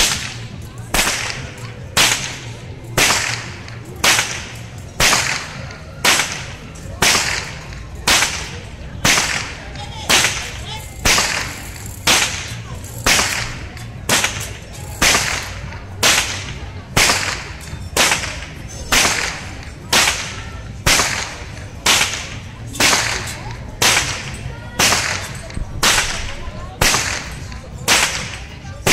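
A long carnival whip swung by a costumed Urzel and cracked over and over, one sharp crack about every second in a steady rhythm.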